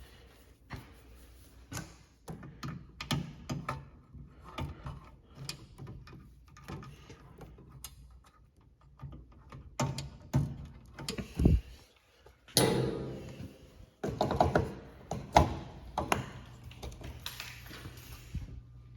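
Irregular clicks, knocks and thunks of hand tools and parts being handled during work on HVAC control wiring, with the loudest knocks in the middle stretch. A low steady hum comes in near the end.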